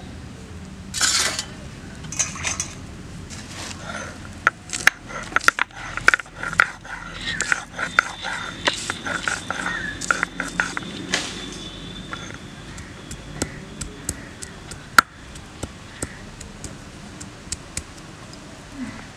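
Garlic cloves being crushed with a stone roller on a flat grinding stone (shil-nora): irregular knocks and scrapes of stone on stone. The knocks come thickest in the middle and thin out toward the end.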